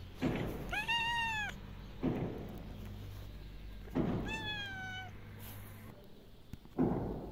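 Cat meowing twice: a meow that rises and falls about a second in, and a second, falling meow around four seconds in. Dull thuds land every couple of seconds between them.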